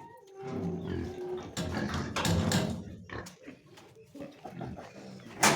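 Pigs grunting in short, irregular bursts, with a sharp knock near the end.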